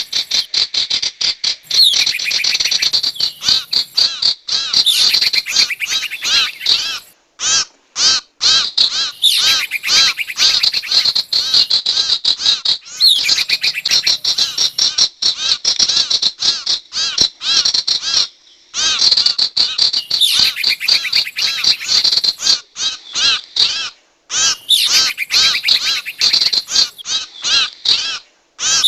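Lure recording of sirtu bird calls: long rapid strings of shrill, stuttering chirps repeating over and over, broken by a few short pauses.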